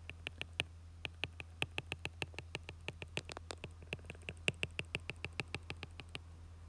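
A stylus tip tapping on a tablet's glass screen while drawing a dashed line: a quick, uneven run of light ticks, several a second, over a low steady hum.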